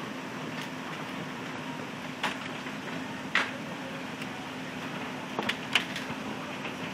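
Heavy rain mixed with hail: a steady hiss of downpour, with sharp clicks of single hailstones striking close by, about six of them, the loudest about three and a half seconds in.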